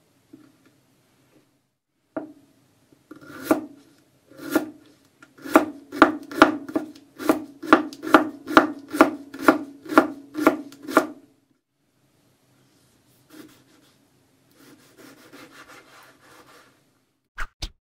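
A kitchen knife made from underwear fabric chops a cucumber into thin slices on a wooden cutting board, a steady run of knocks at about two a second. Near the end comes a quieter, scratchy slicing through a tomato.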